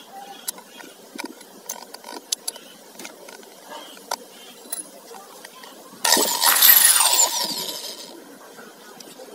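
Small metallic clicks of a keyed drill chuck being tightened with its chuck key, then about six seconds in the corded electric drill is switched on briefly: its motor whirs up and winds down with a falling whine over about two seconds.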